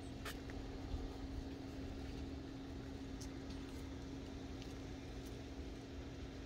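A steady low hum on one pitch, with a faint rumble beneath it and a few faint clicks.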